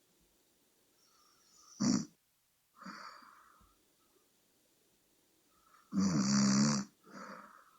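A sleeping person snoring. There is a short snore about two seconds in and a longer, louder snore of about a second near the end, each followed by a breathy exhale.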